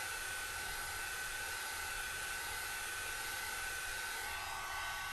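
Quo ceramic hot air brush running as a hair dryer, blowing steadily over alcohol ink on Yupo paper: a constant rush of air with a thin, steady high whine.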